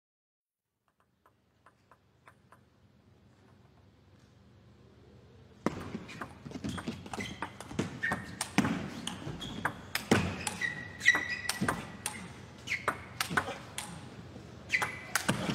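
Table tennis rally: the celluloid ball clicking sharply off the bats and the table in quick, irregular succession over arena noise, with a few short high squeaks. It starts suddenly about six seconds in, after near silence and a faint rising hum.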